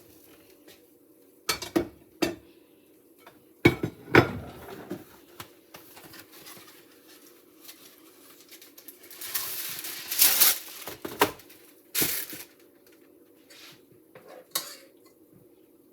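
Kitchen dishes and utensils clinking and knocking now and then, with a short stretch of hissing, rustling noise about nine to ten seconds in, over a steady low hum.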